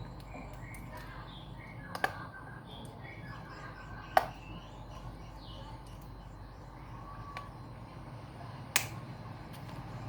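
Three sharp clicks, about two seconds in, four seconds in and near the end, over a low steady hum, with faint bird chirps in the first few seconds.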